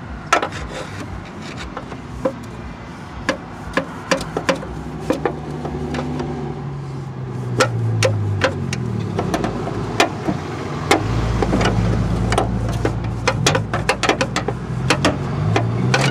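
Steel pry bar levering a Jeep Grand Cherokee's lower steering shaft U-joint off the steering gearbox's splined input shaft: repeated sharp metal clanks and clicks as the stuck joint works loose, over a low hum.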